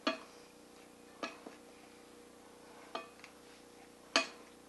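Metal spoon stirring dry flour mix in a glass mixing bowl and clinking against the glass: a handful of sharp taps about a second apart, the loudest near the end.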